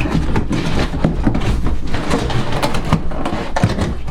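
Cardboard box and packing being pulled open and handled: an irregular run of rustles, scrapes and knocks over a low steady rumble.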